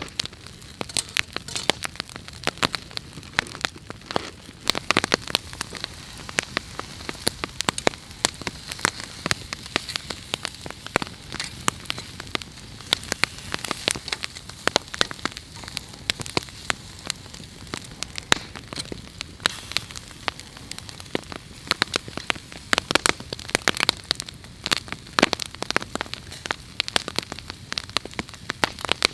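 Wood campfire crackling: many sharp, irregular pops and snaps from the burning logs over a steady hiss.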